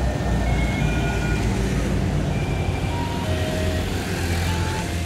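Low, steady engine rumble of road traffic going by, with a few short high-pitched whistles over it.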